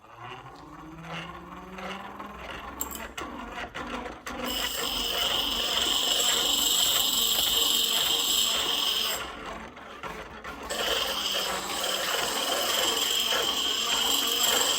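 A small electric power tool spins up, its whine rising in pitch, then runs steadily on the work with a high-pitched whine and hiss. It eases off for about a second partway through, then picks up again and cuts off sharply at the end.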